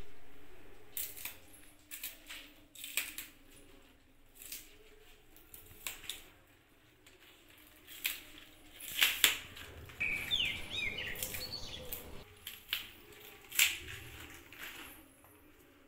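Crisp rustling, crackling and snapping of fresh green onion stalks being handled and their outer layers peeled off, in short irregular bursts. A loud sound fades away over the first second or two, and a few brief high chirps come about ten seconds in.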